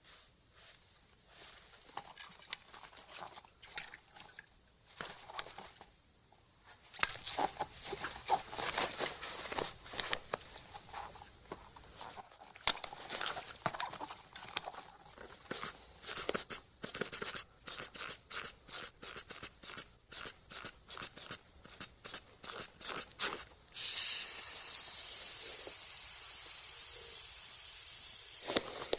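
Manual blood-pressure cuff (sphygmomanometer) handled and wrapped with rustling and a velcro tearing sound, then the rubber inflator bulb squeezed in quick repeated pumps, about two a second. Near the end the valve is opened and air hisses steadily out of the cuff.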